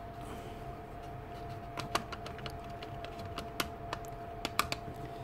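Light, scattered clicks and taps of plastic parts and a screwdriver as a motor's plastic housing is handled and fitted together. They come irregularly through the second half, over a faint steady hum.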